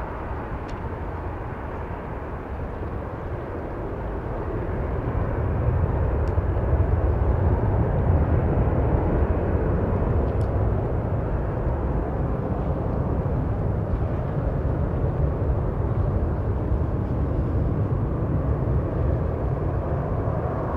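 Boeing 777 airliner's jet engines at climb thrust just after takeoff: a broad, deep rumble that swells about five seconds in and stays loud as the jet climbs away.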